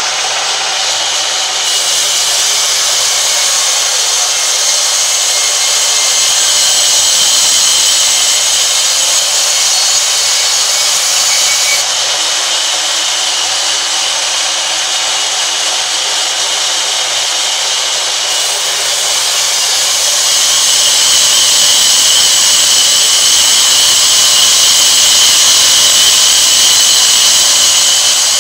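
Large sawmill band saw ripping lengthwise through a heavy log slab: a loud, steady hiss of the blade cutting the wood, getting a little louder about six seconds in and again about twenty seconds in.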